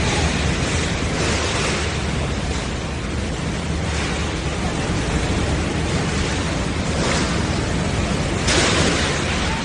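Strong wind and heavy rain: a dense rushing noise that swells in gusts, the strongest about nine seconds in, with wind buffeting the microphone.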